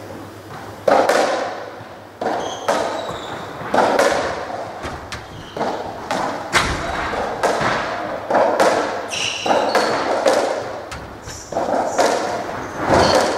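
Racketball rally on a squash court: the ball cracks off rackets and slaps against the walls about once a second, each hit echoing around the court, with short shoe squeaks on the wooden floor between hits.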